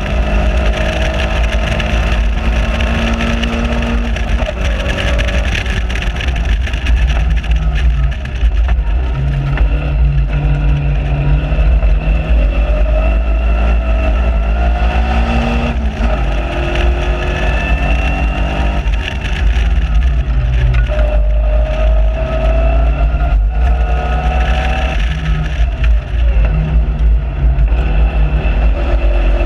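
Caterham Seven 1.6 Supersport's engine heard from the cockpit at track speed, rising in pitch through the gears and dropping sharply at each upshift several times, with wind rushing over the open car.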